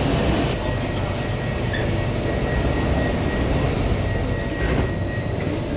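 Steady hum and rumble inside a Singapore MRT C751A metro car standing at a station platform, with a faint high steady whine. No rising or falling motor pitch: the train is not yet pulling away.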